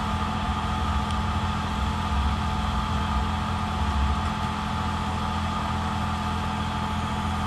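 Tractor engine running steadily, a continuous low hum with a faint steady tone above it.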